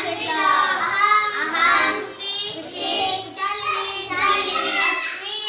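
A young girl's voice chanting phrases aloud in a sing-song tune, in short lines with brief breaks between them, as a recitation from a blackboard.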